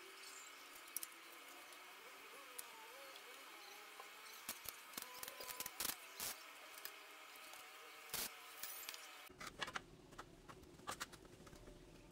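Scattered light clicks and taps over a faint background hiss with thin steady high tones. About nine seconds in, the background changes abruptly to a low hum.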